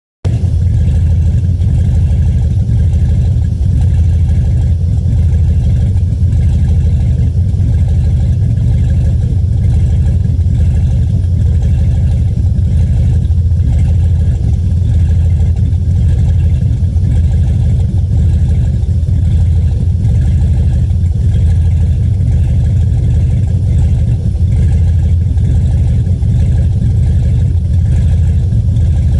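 A GM 4.8-litre LS V8 running warm with a steady, loud low engine note. This is the stumbling misfire that the owner says appears once the engine is warm.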